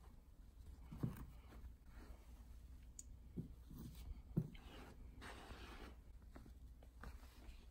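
Faint handling sounds as string is untied and pulled off a small fabric-wrapped package: a few light taps and a short scratchy rustle about five seconds in.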